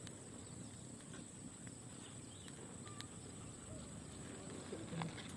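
Quiet outdoor ambience around a small wood fire: a few faint crackles over a low rumble and a steady high-pitched hum.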